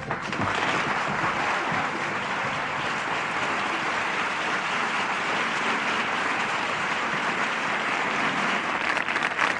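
Large audience applauding steadily, a dense, even clapping without a break, right after a song has ended.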